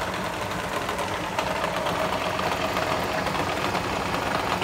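Vertical milling machine running, its end mill cutting into a small metal locking-bolt pin held in a vise: a steady machining noise, with a higher steady tone joining about a second and a half in.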